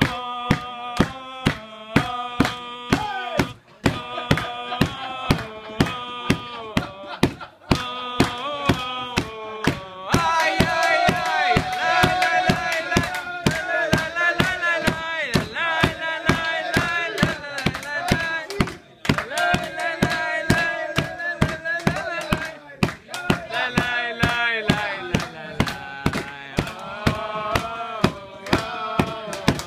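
Men singing a rhythmic Jewish song together, with steady handclaps about twice a second keeping the beat. About ten seconds in, the singing grows fuller and louder.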